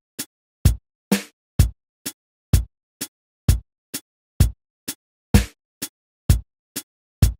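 Electronic percussion sounding a 2:9:18 polyrhythm: a click on every beat of an 18-beat cycle, about two a second. Every second click carries a loud, deep hit (the 9). A longer, noisier hit (the 2) comes about a second in and again about five seconds in.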